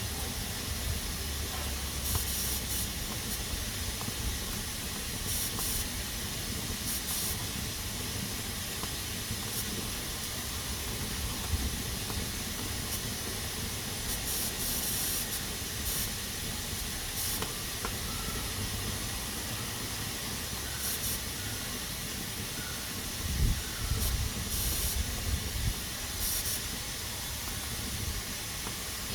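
Pressure cooker hissing steadily as steam escapes through its valve, with louder spurts of steam every few seconds. A few low knocks come a little over twenty seconds in.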